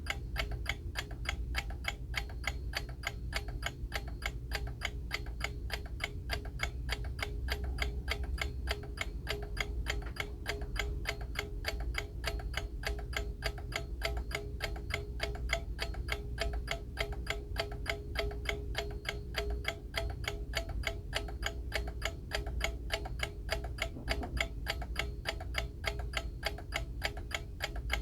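Vintage Rhythm mechanical bell alarm clock ticking steadily, with quick, even ticks several times a second. The alarm bell is not ringing.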